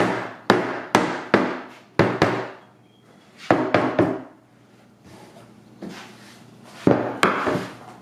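Hammer knocking a tight-fitting plywood panel down into a wooden base frame: a quick run of sharp blows, a pause, three more, then two near the end.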